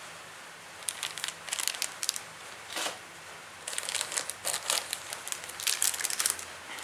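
Plastic packaging crinkling in the hands as small model-kit parts are handled, in irregular crackles that pause briefly near the middle and grow busier in the second half.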